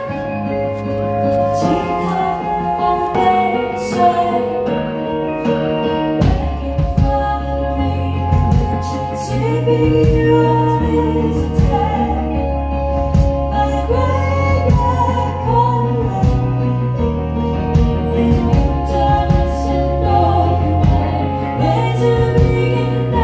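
A live band plays with a singer. Sustained chords and voice come first; a low bass line and drums come in about six seconds in and keep a steady beat.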